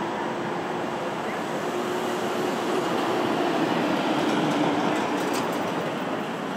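Steady noise of a passing vehicle with a faint low hum, growing louder about halfway through and easing off near the end.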